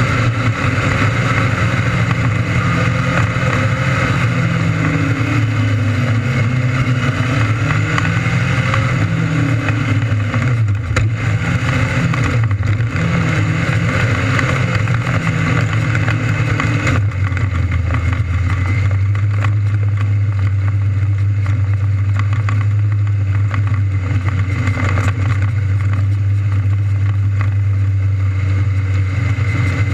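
600cc micro sprint engine running hard, its pitch rising and falling with throttle. About halfway through it settles into a steady, lower drone.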